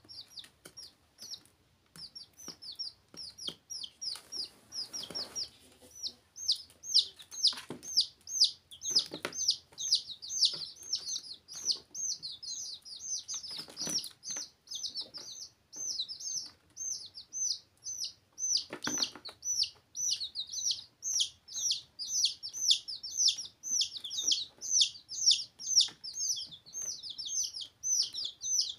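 Several baby chicks peeping rapidly and without pause, a stream of short, high, falling peeps that grows denser and louder about six seconds in, with a few dull knocks among them.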